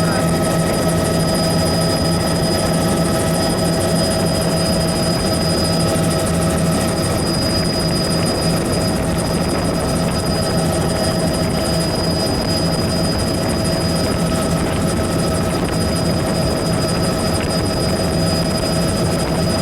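Helicopter in flight: a steady, unbroken drone of rotor and engine with a constant high whine.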